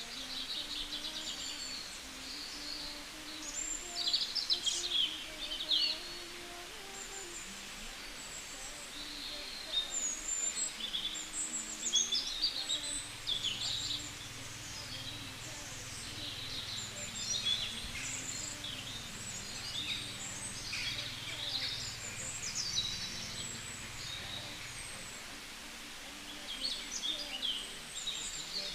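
Songbirds chirping and trilling in short, high phrases again and again, over a steady outdoor background hiss.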